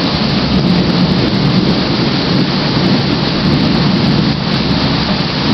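A long rolling thunder rumble over steady, heavy rain, continuous throughout with no sharp crack.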